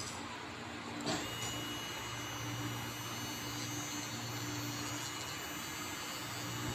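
Small electric pet nail grinder's motor running with a steady hum. A click about a second in, after which a thin high whine runs alongside the hum.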